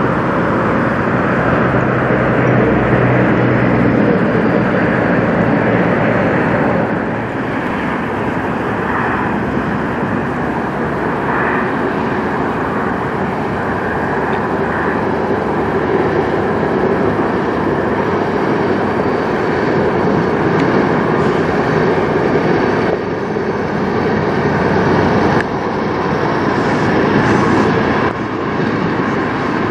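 Diesel engines of semi trucks running at low speed as they pull through a lot. A long-hood semi tractor hauling an end-dump trailer is followed by a Kenworth tractor with a van trailer. The sound shifts abruptly a few times.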